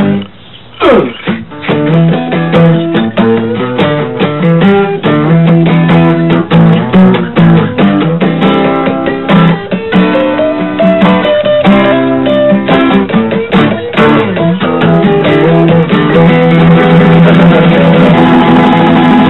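Acoustic guitar picking a country-style tune without singing, after a short dip in level about a second in.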